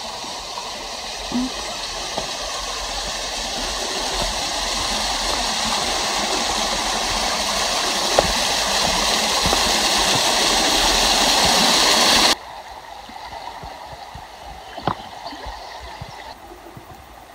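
Running water of a forest stream, a steady rush that grows louder for about twelve seconds and then cuts off abruptly, leaving a much quieter background with a few faint clicks.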